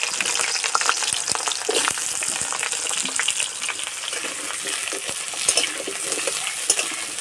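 Potato wedges frying in hot oil in a metal kadai, a steady loud sizzle, with the metal spatula scraping and clicking against the pan as they are stirred.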